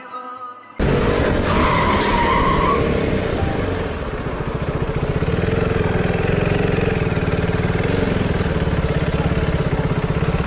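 Motorcycle engine running with a fast, even pulse, starting suddenly about a second in, with a short squeal soon after.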